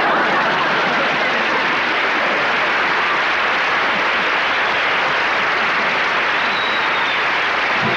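Studio audience applauding, a steady, even clapping that carries on without letting up.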